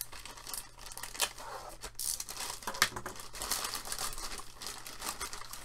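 Plastic courier mailer bag crinkling and rustling in irregular bursts as hands pull it open.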